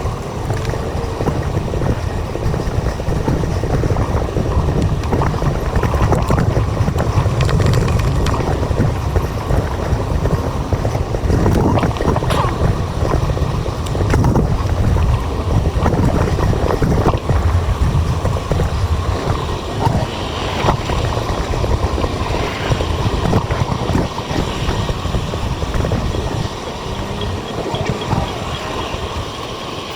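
Wind buffeting the microphone of a camera on a moving bicycle: a steady low rumble with scattered short knocks from the ride.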